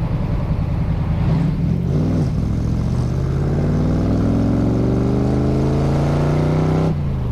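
Ford small-block V8 of a Factory Five Cobra replica pulling under acceleration, its revs climbing steadily for several seconds. The engine note then drops suddenly near the end.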